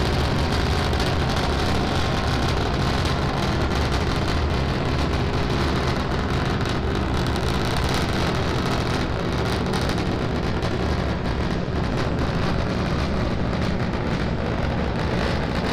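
Starship SN10's three Raptor rocket engines firing during ascent, heard from a distance as a steady rumbling noise.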